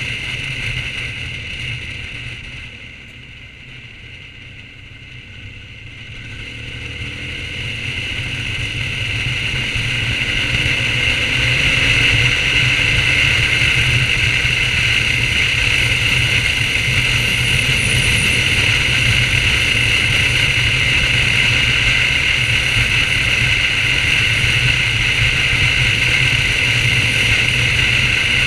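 BMW R1200GS boxer-twin motorcycle riding along a road, engine and wind noise together. The sound drops a few seconds in as the bike eases off, then the engine pitch rises as it accelerates back up to a steady cruise.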